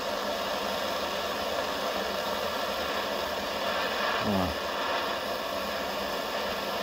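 Handheld gas blowtorch burning with a steady hiss, its flame playing on a steel bolt held in locking pliers to heat it.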